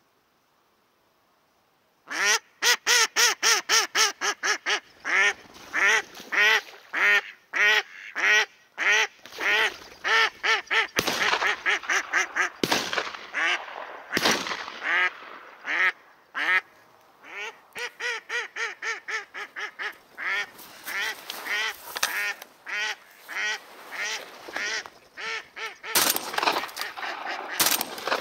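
A live decoy hen duck quacking in long, fast series of loud calls, starting about two seconds in. This is the calling a decoy hen gives to draw drakes in.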